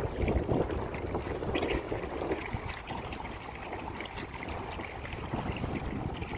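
Kayak paddle strokes splashing in the water at a steady rhythm, about one every second and a half, with wind rumbling on the microphone.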